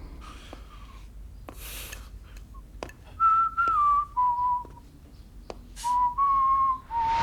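A person whistling a short tune: about six clear notes, some gliding down in pitch, starting about three seconds in.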